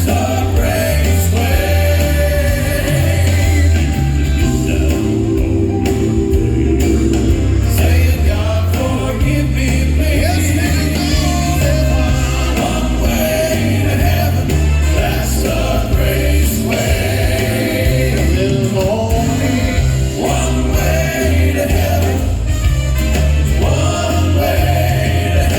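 Gospel song: a vocal quartet singing in harmony over band backing, with a bass line moving in steps.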